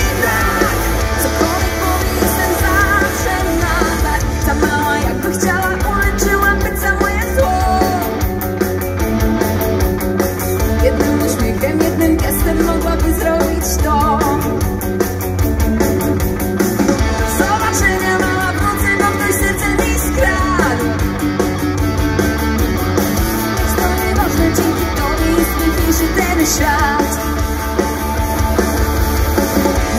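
Live rock band playing loudly through a concert PA, with electric guitar and drums.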